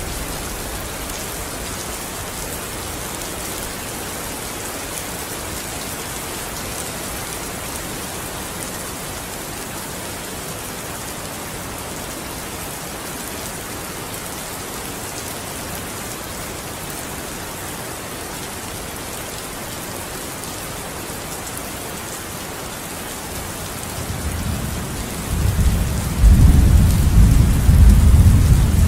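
Steady rain falling, an even hiss, with a low rolling rumble of thunder that builds from about three-quarters of the way in and is loudest near the end.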